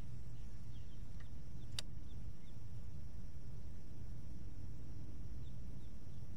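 Steady low rumble with a faint steady high hiss over it, a few faint bird chirps, and a single sharp click about two seconds in.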